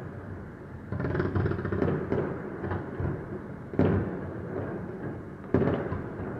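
Fireworks going off: a sudden bang about a second in followed by crackling, then further bangs near four and five and a half seconds, each trailing off.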